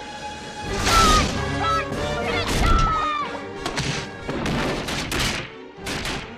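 Dramatic orchestral film score with several loud crashes and thuds of wood smashing, as a shark bursts through the sunken ship's hull.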